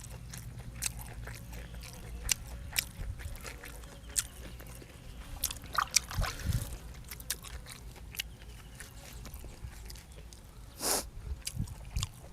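A person eating close to the microphone: chewing, with frequent sharp clicks and wet smacks. A low steady hum runs underneath.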